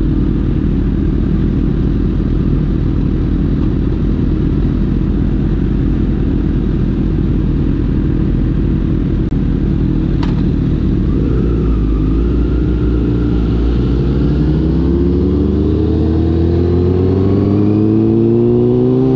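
Honda CBR1000RR inline-four through an Arrow exhaust, running at low, steady revs, then from about eleven seconds in its pitch climbs smoothly and steadily as the bike accelerates. A single short click about ten seconds in.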